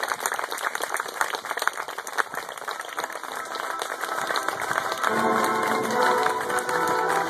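Audience of guests applauding, a dense patter of many hands clapping. About five seconds in, music begins and plays under the fading applause.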